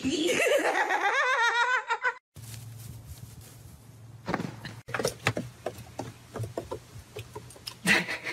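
A person's high, quavering laugh for about two seconds, rising in pitch and cut off abruptly. It is followed by a steady low hum with scattered knocks and clicks.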